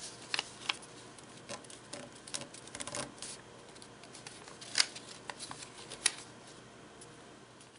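Origami paper being handled, folded and creased by hand: scattered soft rustles and crisp crackles, with two sharper clicks about five and six seconds in.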